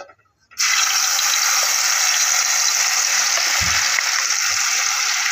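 Wet ground masala paste tipped into hot oil, sizzling loudly: the sizzle starts suddenly about half a second in and carries on as a steady hiss.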